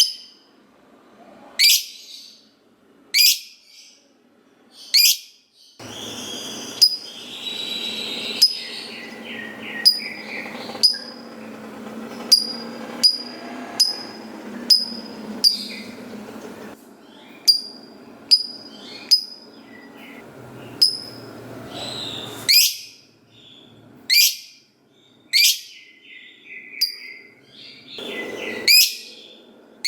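Lovebird calling with sharp, high chirps every second or two. For most of the middle stretch it gives a long run of quicker, evenly spaced chirps over a rough background noise, then the single chirps return near the end.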